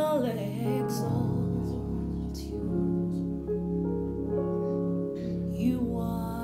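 Slow worship music: sustained instrumental chords with a bass line that comes in about a second in. A woman's sung phrase ends just after the start, and she sings again near the end.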